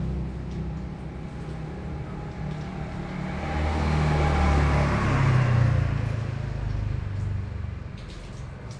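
A motor vehicle's engine running nearby and passing, its noise swelling to a peak about halfway through and then fading.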